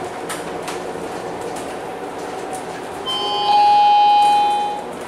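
Steady running noise inside a MAN NL323F A22 city bus under way. About three seconds in, an electronic tone starts, grows much louder and holds for over a second before stopping. It is the stop-request chime.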